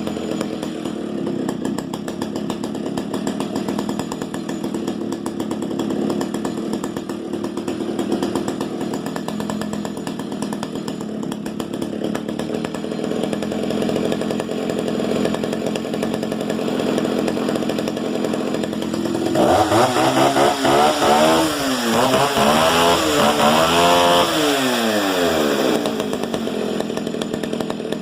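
Stihl 08S 60cc two-stroke chainsaw idling steadily, then revved up and down in several quick throttle blips for about six seconds before dropping back to idle.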